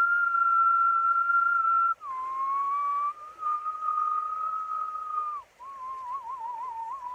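A man whistling long held notes: one steady high note, then after a short break about two seconds in, a lower note that climbs slightly and holds. Near the end comes a warbling, wavering note.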